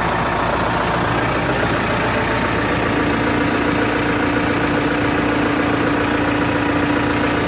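New Holland B95 loader backhoe's diesel engine running steadily. A steady higher tone joins about three seconds in and holds until near the end.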